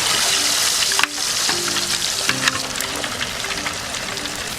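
Porterhouse steak deep frying in hot vegetable oil, a steady, loud sizzle as it crisps in its second fry for a crust. The sizzle dips briefly about a second in.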